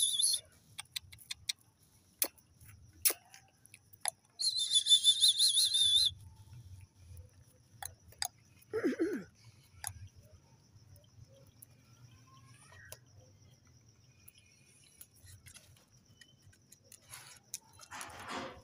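A high, warbling whistle-like tone lasting about a second and a half, then faint scattered clicks, a short lower whine around the middle and a brief rustling burst near the end.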